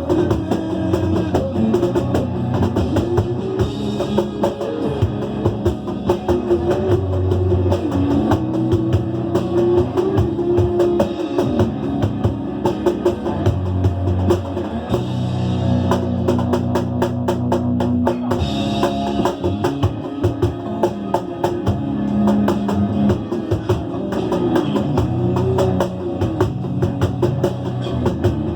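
Batucada: a samba percussion ensemble drumming a fast, dense rhythm, with pitched tones gliding up and down over the drums.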